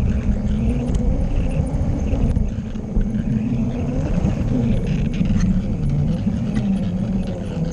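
LEGO train running along plastic track, heard from on board: a steady rumble of wheels and drive with a wavering motor hum and scattered clicks as it passes over the track joints.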